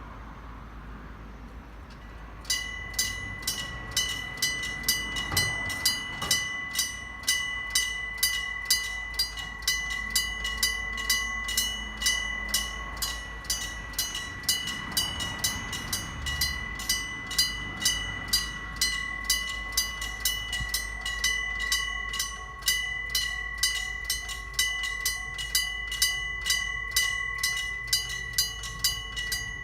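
Level-crossing electric bells (mechanical gongs) start ringing about two and a half seconds in, striking rapidly with a ringing metallic tone: the crossing's warning that a train is approaching. The west and east bells strike at different speeds, so their strokes drift out of step and fall unevenly.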